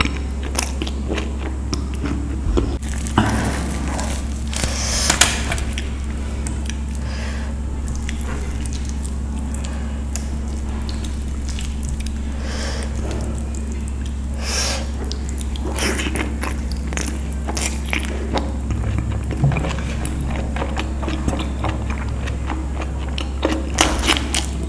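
Close-miked chewing and lip smacking as a person eats naan with paneer curry by hand, in scattered short clicks and smacks, over a steady low hum.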